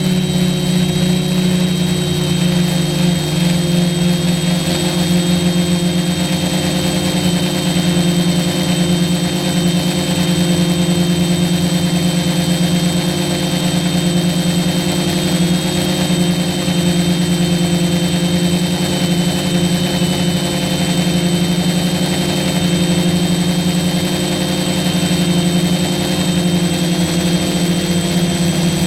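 F450 quadcopter's motors and propellers running steadily in flight: a constant loud hum with thin high whines above it.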